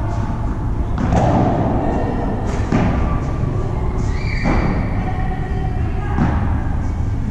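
Padel balls thudding off rackets, walls and the court floor in a few separate strikes, echoing in a large indoor hall over a low steady hum. About four seconds in, a short high squeak rises and then holds.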